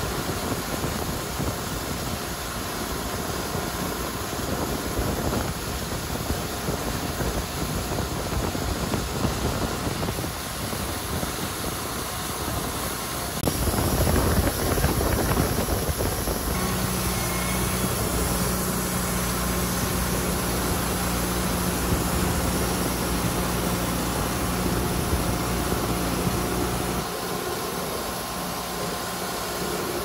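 Wood-Mizer LT40 portable band sawmill running, its engine going steadily. It gets louder for a few seconds about halfway, then a steady hum joins for about ten seconds and stops near the end.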